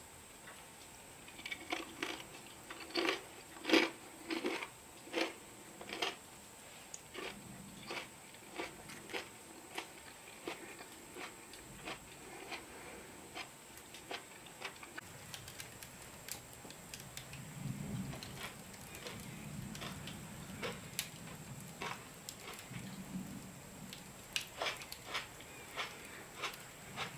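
Crisp fried potato curls crunching in irregular crisp snaps, loudest and closest together in the first few seconds, then sparser.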